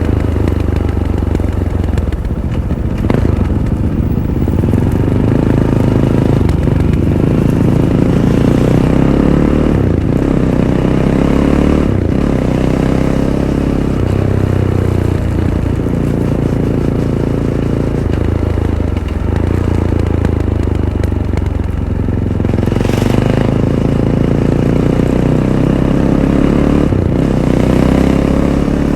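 Fantic Caballero 500's single-cylinder engine through its stock Arrow exhaust, running on the move with revs rising and falling through throttle and gear changes. Occasional sharp knocks and clatter are heard over it.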